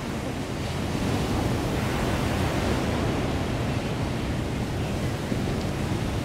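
Heavy storm surf breaking on a sand and pebble beach, a steady rush of waves, with wind rumbling on the microphone. The big surf is driven by a hurricane just off the coast.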